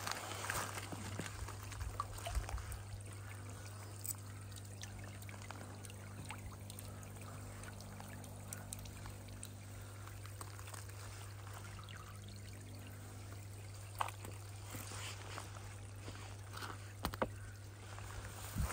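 A thin jet of water splashing and trickling onto a pond's surface, over a steady low hum.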